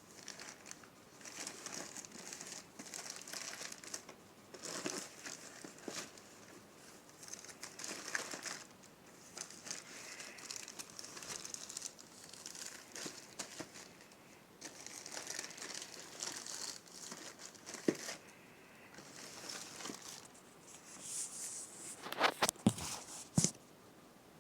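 Packaging being handled and unwrapped: repeated bursts of crinkling and rustling, with a few sharp clicks or snaps near the end.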